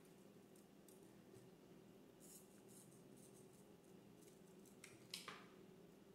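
Near silence with faint handling noise: satin ribbon rustling as it is handled and hot-glued. A short, slightly louder rustle comes about five seconds in.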